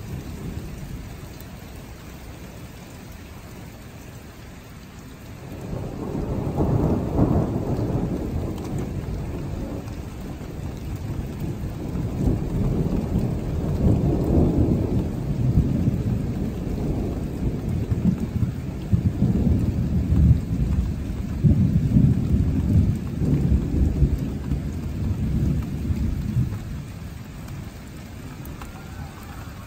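A long rolling rumble of thunder begins about five seconds in, swells and ebbs in several waves, and dies away near the end, over the steady hiss of rain.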